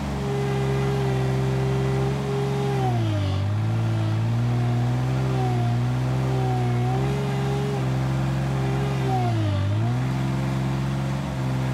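Bobcat L28 small articulated loader's 24-horsepower diesel engine running at high throttle, its note sagging twice for about a second and recovering as the engine bogs under load pushing into hard-packed, muddy clay.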